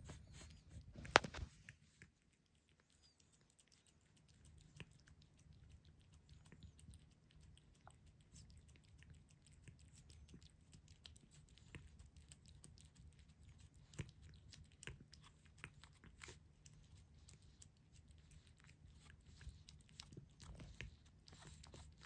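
Domestic cat licking and eating soft wet food paste, faint wet tongue smacks and chewing clicks in a quick irregular run. A single sharp click about a second in.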